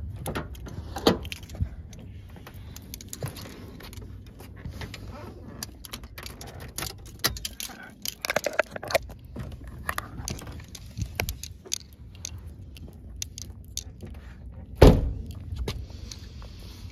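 Footsteps on asphalt and scattered clicks and knocks of handling as someone gets into a 1992 Acura Integra. One heavy thump about 15 seconds in is the loudest sound, a car door shutting.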